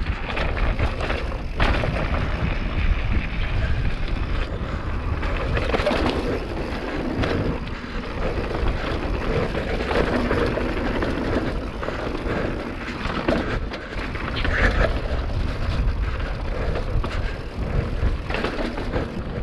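Mountain bike riding over a rough dirt and rock road: tyre noise with irregular rattles and knocks from the bike, and wind rumbling on the microphone.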